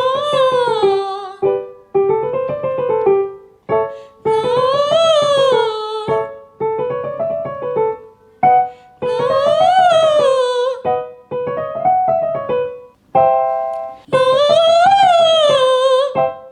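A woman singing a vocal warm-up slide over piano, her voice gliding up and back down in each phrase. She sings four phrases, each followed by the piano alone playing the pattern for the listener to repeat, and each repeat is pitched a little higher.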